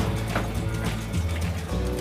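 Background music with a steady bass line and light percussive hits.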